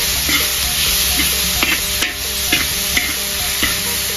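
Vegetables sizzling in hot oil in a large metal wok, with a metal spatula scraping against the pan about six times as they are stir-fried.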